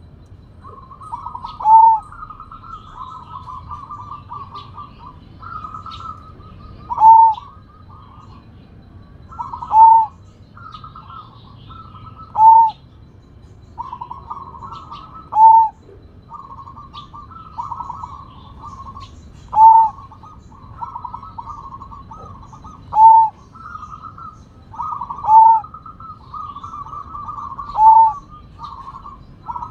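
Zebra dove (perkutut) of the Sumbawa strain cooing. Each phrase is a soft rolling trill ending in one loud, short note that falls slightly at the end, repeated every few seconds.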